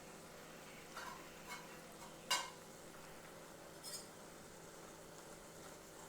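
A cooking utensil knocking against a kadai four times while omelette pieces are stirred into Maggi noodles; the loudest knock comes about two seconds in.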